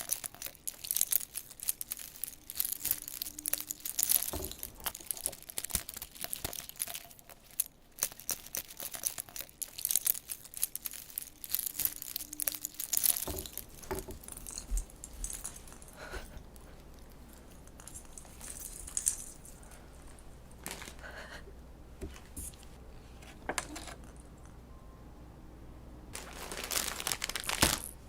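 Crinkly packaging being handled, crackling and rustling with many small clicks, busy for about the first half, then only scattered taps, with another burst of crinkling near the end.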